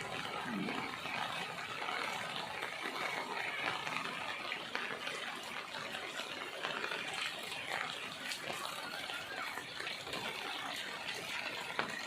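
Steady rain falling, an even rushing hiss of water with no breaks.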